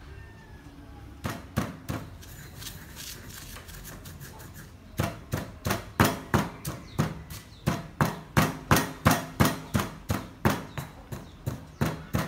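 Stone pestle pounding red chilies in a stone mortar: a few strikes about a second in, then steady pounding at about three strikes a second from about five seconds in.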